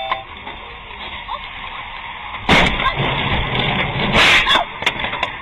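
Car collision recorded by a dashcam inside the car: steady road noise, broken by two loud crashes of impact about two and a half and four seconds in, the second longer with rattling after it.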